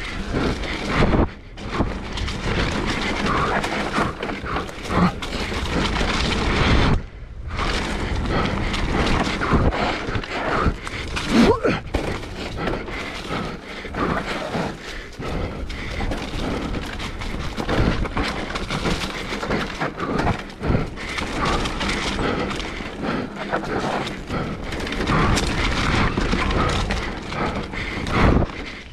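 Electric mountain bike riding downhill over a rough dirt trail: tyre noise with a constant rattle and a rapid run of knocks and thuds over bumps and roots, dropping away briefly about seven seconds in.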